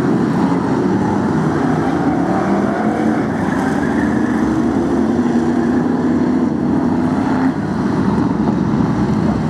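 Several BriSCA F1 stock cars' V8 engines running together as the cars circle the shale oval at rolling-lap pace before the green flag, their engine notes drifting slowly up and down.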